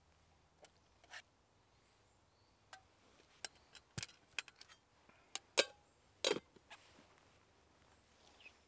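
Metal cookware clinking: a spoon tapping and scraping against a titanium pot and metal canteen cups as pasta is served out, then the pot's lid set on. A string of separate sharp clinks and taps, the loudest cluster a little past the middle.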